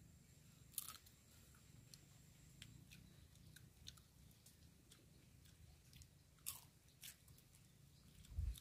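Faint crunching and chewing of crunchy cooked grasshoppers: a few sharp crisp crunches, the loudest about a second in and again around six and a half and seven seconds in, among softer scattered ticks.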